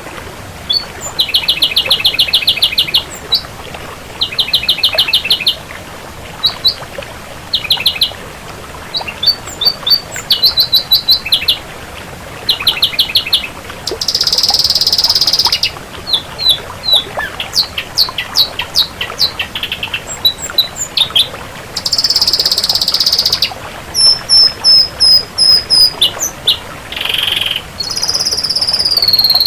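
Ashy drongo singing a varied song: rapid rattling trills and short sharp whistled notes, broken by two harsh, rasping calls of about a second and a half each, with a long whistle that drops in pitch near the end.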